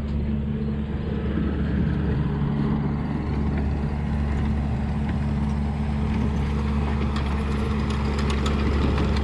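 Engine of a work machine running steadily as it is driven along. It rises in level over the first second, then holds, with a few light clicks and rattles near the end.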